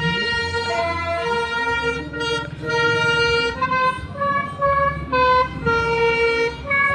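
A bus's Basuri telolet horn, a multi-tone horn, playing a tune of separate held notes that step up and down in pitch, with the bus engine running underneath.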